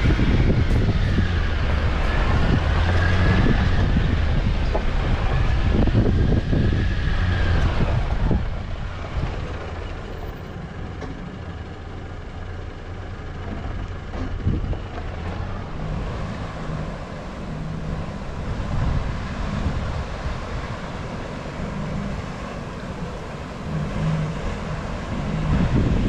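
A 4WD's engine and tyres heard from inside the cab as it drives slowly down a rough, rocky dirt track, with knocks and rattles. It is louder for about the first eight seconds, then settles quieter.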